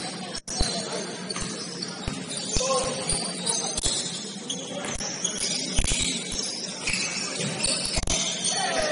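Basketball game noise in a gym: the ball bouncing in irregular short thuds over a busy mix of court sounds.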